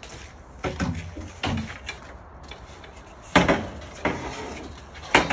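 Metal scaffold parts knocking and clanking as a scaffold deck board is handled against the frame: several sharp knocks, the loudest about three and a half seconds in.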